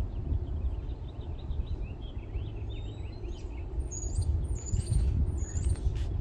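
Wind buffeting the microphone with an uneven low rumble while songbirds chirp. About four seconds in, a bird gives three high whistled notes in a row.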